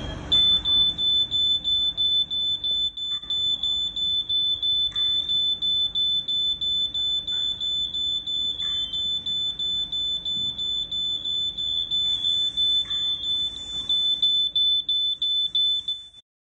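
Wireless battery-powered smoke detector sounding its alarm: a loud, high-pitched tone pulsing in rapid even beeps, about three a second, that cuts off suddenly near the end.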